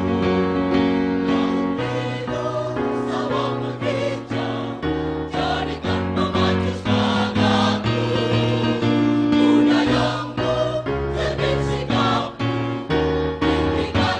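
Choir singing in sustained chords with instrumental accompaniment, a low bass line moving from note to note under the voices.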